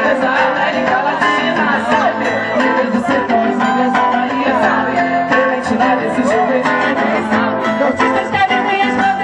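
Live band music: guitar playing under singing voices.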